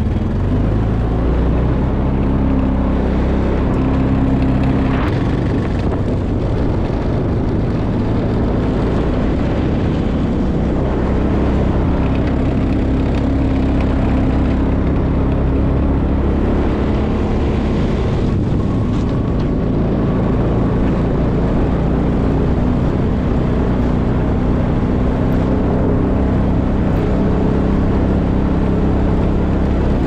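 ATV (four-wheeler) engine running at a steady pitch as it is ridden along, heard from the rider's seat.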